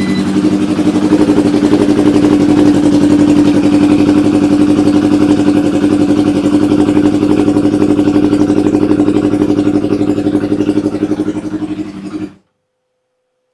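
Yamaha R1 motorcycle's inline-four engine running at a steady idle, loud and even, then cutting off abruptly about twelve seconds in. It is running with a replacement MAP sensor fitted, as a test of its stalling at a stop.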